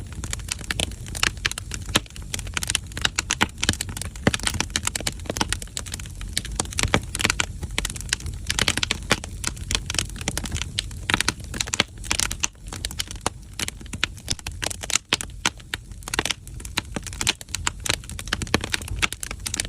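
Firewood burning in a traditional Korean agungi firebox, crackling and popping irregularly and continuously over a low rumble.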